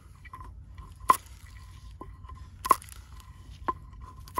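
Kitchen knife chopping garlic chives on a wooden cutting board: four or five sharp knocks roughly a second apart, each with a short ringing.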